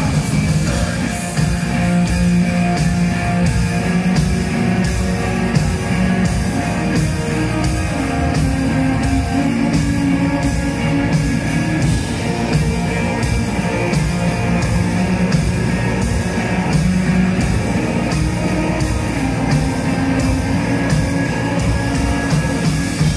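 Live Mongolian folk-metal band playing loud: bowed morin khuur (horsehead fiddle) and string lines over drums keeping a steady beat.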